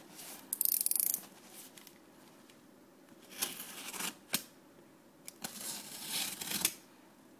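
A plastic-wrapped cardboard shipping box being ripped open by hand: a loud rip about half a second in, then further bouts of tearing and crinkling wrapping midway and near the end, with a single sharp click between them.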